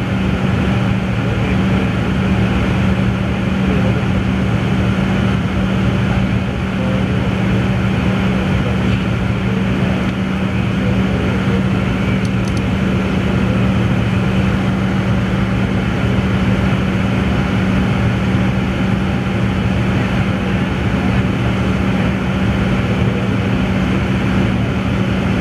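Jet airliner cabin noise during the climb after takeoff: a steady drone of engines and rushing air, with an even low hum under it.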